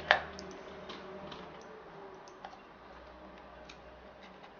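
Light, scattered clicks and taps of a laptop hard drive and its small screws being handled and fitted back into the drive bay, with one sharper click right at the start.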